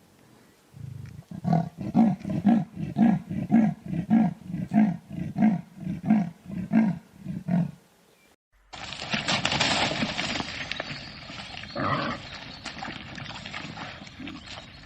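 A big cat's rasping call, a long run of evenly spaced low grunting strokes at about three a second, like a leopard's sawing call. After a short break, a different, harsher and noisier animal sound starts.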